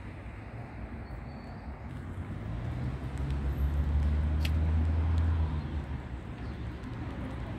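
Low engine rumble of a motor vehicle that swells for about three seconds and then eases off, over steady outdoor background noise.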